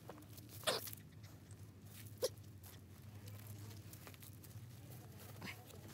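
Lakeland terrier puppies pawing and scrabbling in gravelly sand, with a few short, sharp sounds: one just under a second in, one about two seconds in, and a smaller one near the end.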